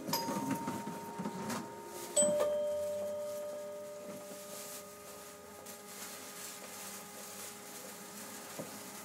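Two-tone chime: a higher tone held for about two seconds, then a lower tone struck and ringing away over a few seconds, over a steady faint hum.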